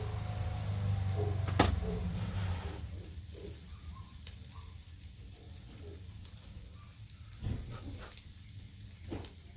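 Rabbit meat sizzling on a grill, with a low hum that fades out about three seconds in, a sharp click about a second and a half in, and two soft knocks near the end.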